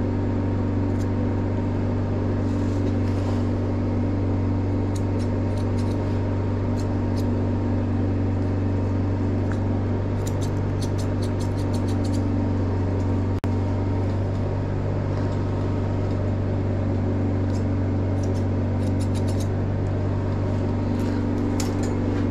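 Grooming scissors snipping a small dog's face hair in short runs of quick snips, over a loud, steady machine hum.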